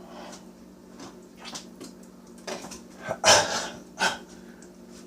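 A person blowing out hard, hissing breaths, with two louder huffs about three and four seconds in, as his mouth burns from eating scorpion peppers.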